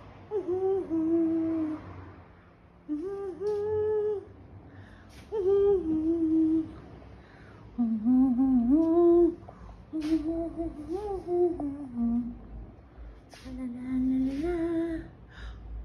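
A person humming a tune without words, in about six short phrases with brief pauses between them.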